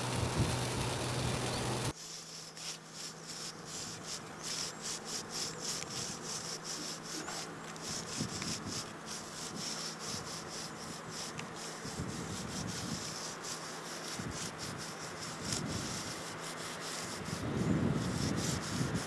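A large lump of charcoal scraped and rubbed along a rough concrete block wall as a line is drawn: a dry, gritty scratching made of many tiny catches. A low rumble sits under it at the start and again near the end.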